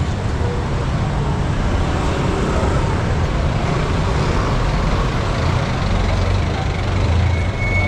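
Busy street traffic, with motorcycle and car engines running and passing in a steady low rumble. A short high-pitched tone starts near the end.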